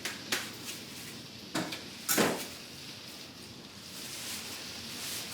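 A few short knocks, then a louder knock and brief scrape about two seconds in, as gardening trays and containers are moved about. Under them runs the steady hiss of heavy rain on the roof overhead.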